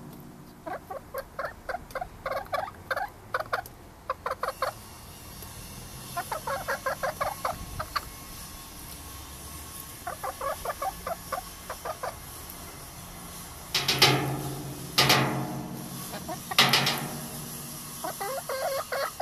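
Domestic hen clucking in runs of quick soft clucks, about four a second, with three loud, drawn-out squawks about two-thirds of the way through before the clucking resumes.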